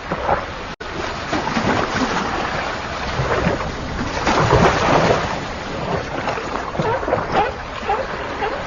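Sea water slapping and splashing against a boat's hull, with wind, in uneven surges that swell loudest about halfway through. The sound cuts out for an instant just before a second in.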